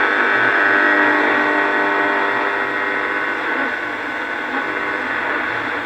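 AWA Radiolette radio sounding through its small loudspeaker: a sustained, whistle-like sound of several steady tones at once, thin and without bass, easing slightly after about three and a half seconds.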